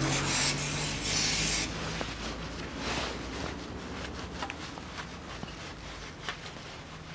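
Rubbing, scraping and small clicks of a gloved hand working on the underside of an automatic transmission case, with two short hissing scrapes in the first two seconds. A low steady hum runs beneath.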